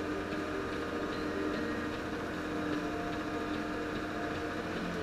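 Snow groomer's diesel engine running steadily as the machine drives along a piste, heard from inside the cab: an even drone with a steady hum.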